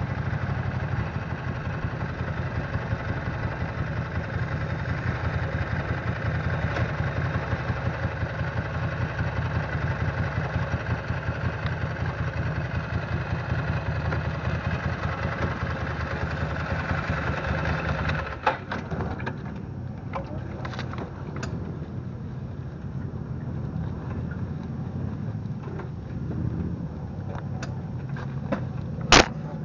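Motorcycle engine running steadily at low speed. About two thirds of the way through it drops to a quieter idle as the bike stops. One sharp knock near the end.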